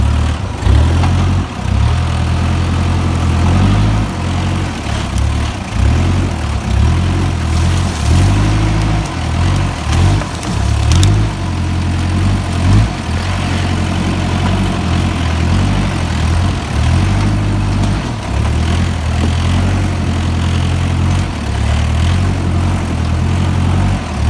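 Kia Sportage 4x4's engine running at low revs while crawling over rough logging-trail debris, its note swelling and dipping as the throttle is worked. There are a couple of brief knocks.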